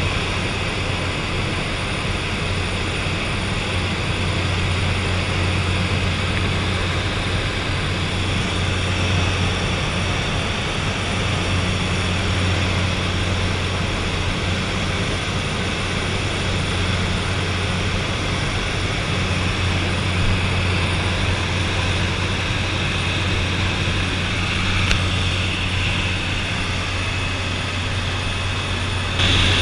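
de Havilland DHC-3 Otter turboprop engine and propeller droning steadily in flight, heard from inside the cabin as a low hum under a wash of rushing noise.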